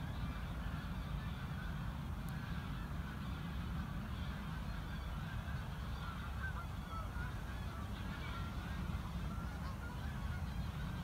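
A flock of geese honking, many overlapping calls without a break, over a steady low rumble.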